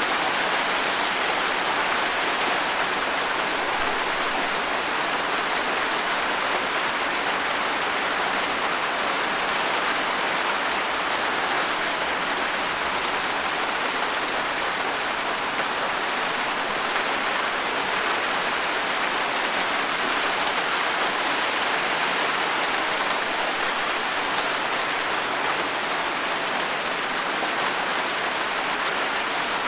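Steady, even rain falling on a surface, a continuous hiss with no distinct drops or thunder standing out.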